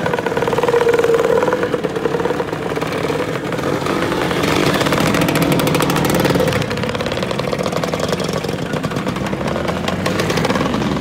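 A procession of two-stroke Lambretta and Vespa scooters riding past one after another, their engines running and revving unevenly. The closest scooter is loudest from about four and a half to six and a half seconds in.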